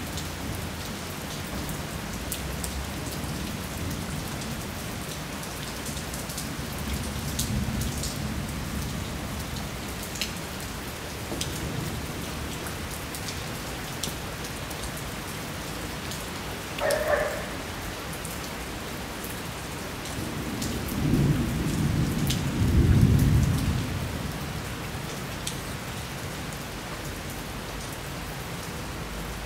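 Steady heavy rain falling on a city street and rooftops during a thunderstorm, with sharp drip ticks close by and thunder rumbling low throughout. A longer, louder roll of thunder comes about two-thirds of the way through, and a brief higher-pitched sound cuts in just past the middle.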